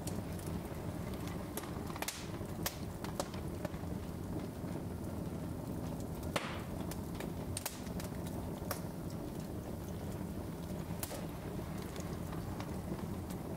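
Logs burning in an open fireplace: scattered sharp crackles and pops over a steady low rumble of the flames, with one louder pop about six seconds in.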